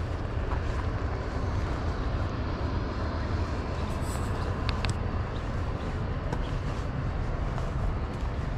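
Footsteps and rustling through dry tussock grass and over rock, with a few small snaps, under a steady low rumble of wind on the microphone.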